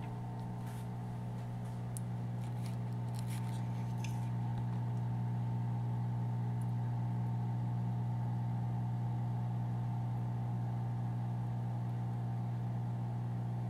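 Steady low electric hum from small aquarium equipment, with a few faint ticks of handling in the first few seconds.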